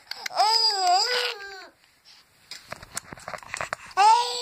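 Baby's high-pitched squealing laugh: one long squeal that bends up and down in pitch just after the start, then a quieter pause with soft scuffing, and another squeal beginning near the end.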